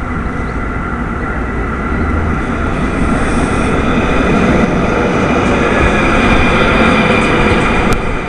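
Tram running, a steady rumble with whining motor tones that grows gradually louder.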